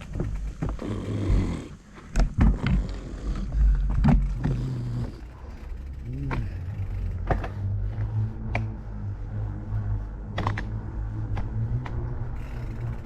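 Fat-tire bicycle rolling along a wooden boardwalk: a steady low rumble of the tires with scattered sharp knocks and clatters as the wheels cross the planks.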